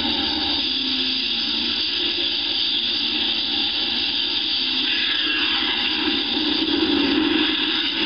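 Steady mechanical drone with a hiss, designed as a menu sound effect, swelling slightly from about five seconds in.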